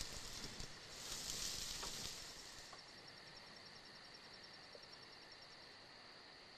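Faint, even hiss of open-air ambience. It is a little louder between about one and three seconds in, then settles to a fainter hiss with a faint, regular high pulsing.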